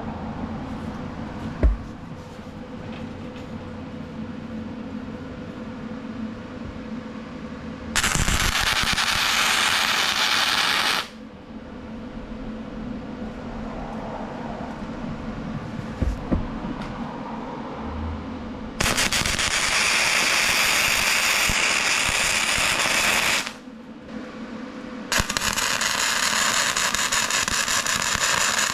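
Welding arc crackling in three runs of a few seconds each, each starting and cutting off sharply, the first about eight seconds in. A single sharp knock comes early on a steady low hum.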